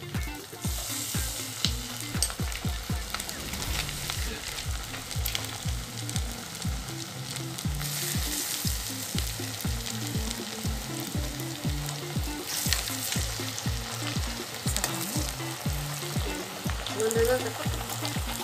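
Rava chakli (semolina murukku spirals) deep-frying in hot oil, with a steady sizzle of bubbling oil. Background music with a steady beat plays underneath.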